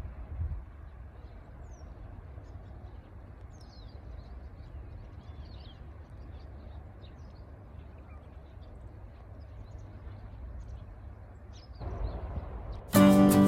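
Outdoor ambience: a steady low rumble with small birds chirping now and then. Acoustic guitar music cuts in near the very end.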